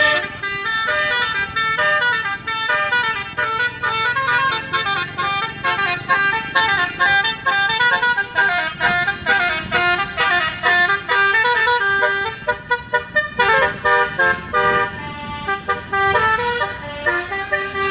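Bus telolet horn, a set of electric air-horn trumpets sounded in turn, playing a fast tune of short notes that keeps jumping in pitch.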